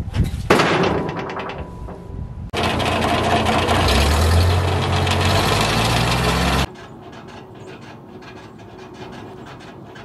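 A log lands with a heavy thump and a ringing tone on a steel sawmill carriage. About two and a half seconds in, a tractor-driven circle sawmill's blade cuts through the log for about four seconds, the tractor engine's note dipping and recovering under the load, then the sound cuts off suddenly. The blade is one that the owner thinks is warped and out of balance.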